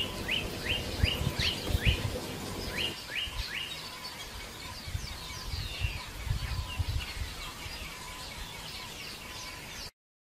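Wild birds chirping: a fast run of short, repeated chirps, about three a second, in the first few seconds, then scattered calls, over low outdoor rumble.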